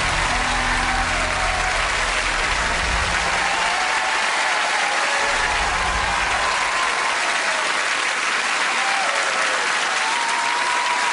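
Studio audience applauding steadily, with music underneath that fades out over the first several seconds.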